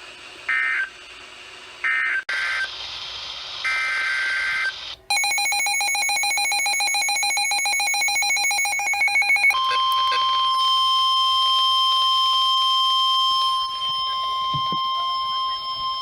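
NOAA Weather Radio alert signals. First come several short, shrill two-pitch digital data bursts of the Emergency Alert System (SAME) code. Then comes a rapidly pulsing electronic alarm tone for about four seconds, and from about halfway through, the steady 1050 Hz weather radio warning alarm tone, which marks the start of a warning broadcast.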